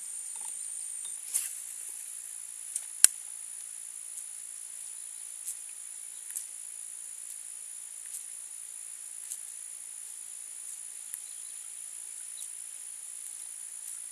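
Steady high-pitched chorus of insects in a marsh, with a few scattered sharp clicks, the loudest about three seconds in.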